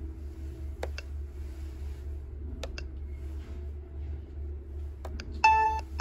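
A stylus tapping on a Leica surveying field controller's touchscreen, making a few light clicks in pairs, over a low steady hum. Near the end the controller gives a loud electronic beep as the pop-up appears saying the DXF data export is complete.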